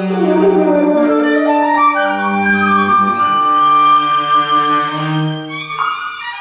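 Contemporary chamber ensemble playing held, overlapping notes on flute and bowed strings (violin and cello), with pitches shifting from note to note. A short burst of breathy noise comes near the end.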